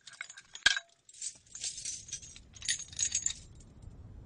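A bunch of metal keys jangling in two short bursts, after a single sharp metallic click near the start.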